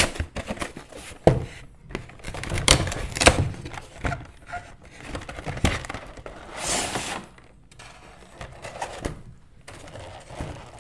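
Cardboard collector's box being opened by hand: knocks and clicks as its flaps and panels are pulled apart, with a longer sliding scrape a little past the middle as the clear plastic insert tray is drawn out.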